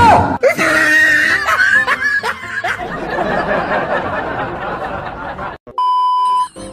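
Edited-in comedy sound effects: a sudden whoosh at the start, then snickering laughter and a stretch of noise, cut off near the end by a short, steady electronic beep.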